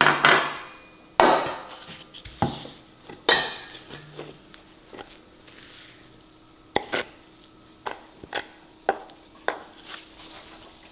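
A few loud ringing clanks of a stainless steel mixing bowl knocking against a stone mortar in the first few seconds, then lighter knocks and scrapes as a stone pestle pushes spiced grated coconut off the stone mortar into the bowl.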